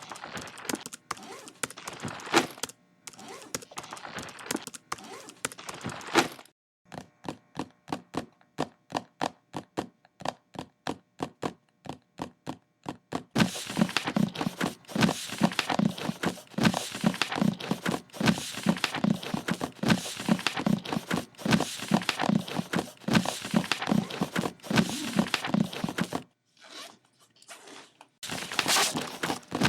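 Recorded knocks, taps, thunks and scrapes layered into a rhythmic beat: a run of sharp even taps about four a second gives way to a louder pattern of low thuds about two a second under busy clicks. It stops briefly, then starts again near the end.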